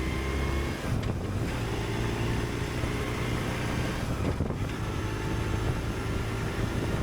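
Motorcycle riding at road speed: the BMW R1150RT's boxer twin runs with a steady hum under constant wind noise.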